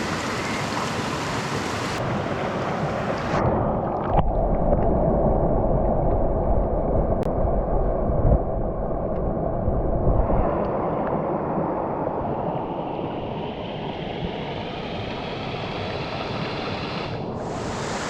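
Rushing water of a small mountain brook. A few seconds in, the sound abruptly turns dull and muffled with a deep rumble, then eases back, and near the end the full rushing sound returns just as suddenly.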